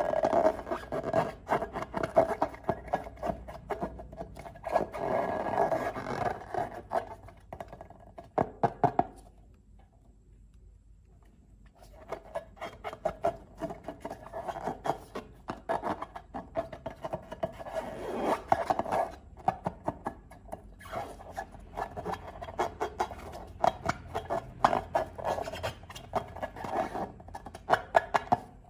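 Slime being squeezed and stretched by hand, making dense, rapid wet clicks and crackling pops. It pauses for a couple of seconds about ten seconds in.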